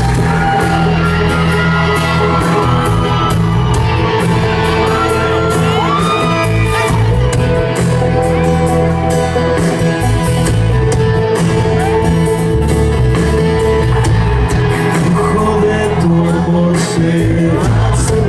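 A rock band playing live, with acoustic guitar and a steady drum beat. Over it there are singing and shouts and whoops from the crowd.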